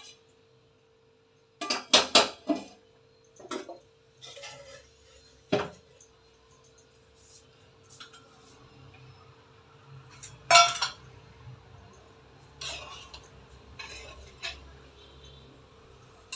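Stainless steel lunch-box containers and lids clinking and clanking against each other and the counter as they are handled: a scattering of sharp metal knocks, three in quick succession about two seconds in and the loudest a little past the middle.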